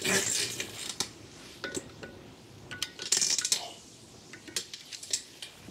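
Light metallic clinks of hand tools and brake parts being handled, with a couple of short scraping sounds, one at the start and one about three seconds in.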